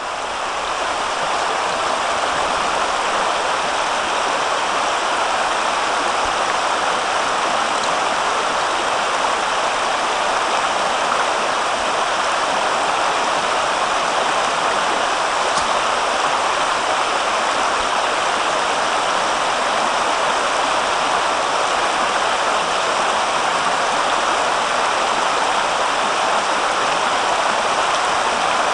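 River water rushing past in a steady, fairly loud wash.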